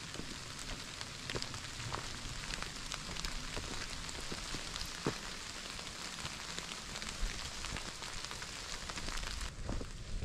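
Steady rain hissing through the forest, with scattered drops ticking sharply, some of them on a nylon rain-jacket hood. The hiss thins out near the end.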